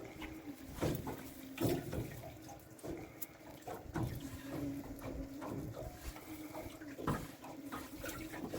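Water splashing and sloshing in irregular strokes, over a faint steady hum.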